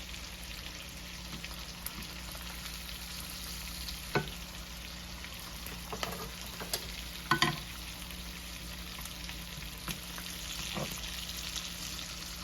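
Lamb chops and a T-bone steak sizzling steadily in garlic butter in a frying pan, with a few sharp taps against the pan, the loudest about seven seconds in.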